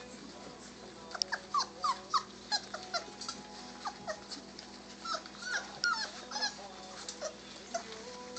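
A litter of chocolate Labrador puppies whimpering and squealing while feeding, many short high cries overlapping several a second, starting about a second in and thinning out near the end.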